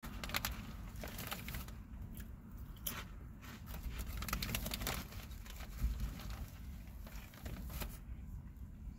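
Plastic bag crinkling and rustling in irregular bursts over a low steady rumble; the crinkling dies down near the end.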